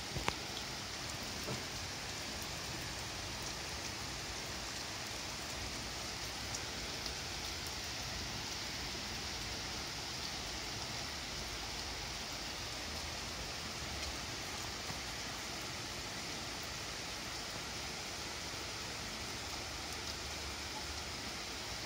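Steady rain falling on trees and a wet standing-seam metal roof, with a few sharper drop taps in the first couple of seconds.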